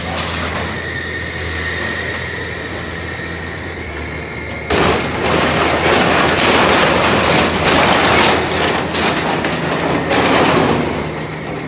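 Mini excavator's engine running with a steady high whine, then, about five seconds in, a loud crunching and clattering of sheet-metal awning and framing being torn and crushed by the bucket, lasting about six seconds before easing off.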